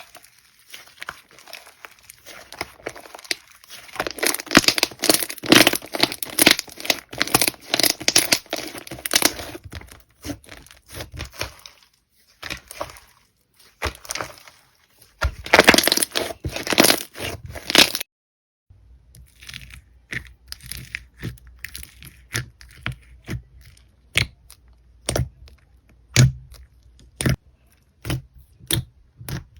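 Slime being squeezed and pressed, giving dense runs of crackling and popping clicks. After a brief cut past the middle, it gives separate sharp pops, a few a second.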